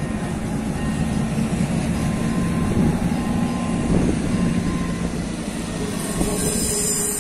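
Diesel railcars passing over a level crossing: a steady rumble of engines and wheels on the rails. Wheel squeal sets in near the end.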